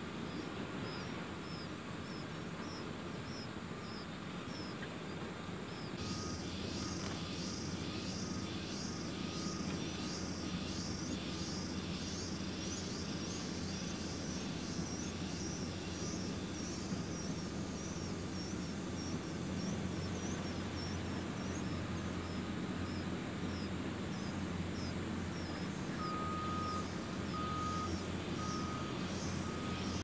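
Nestlings begging at the nest with repeated short, high chirps, about two to three a second, over a steady low rumble. About six seconds in, a loud, evenly pulsed high insect call joins, stops around seventeen seconds and returns near the end, when faint evenly spaced beeps are also heard.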